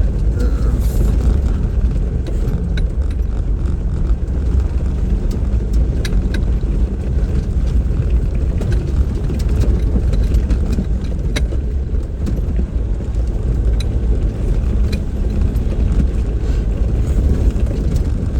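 Off-road vehicle driving slowly over a rough dirt trail: a steady low engine drone and tyre rumble, with scattered sharp clicks and knocks from the rough ground.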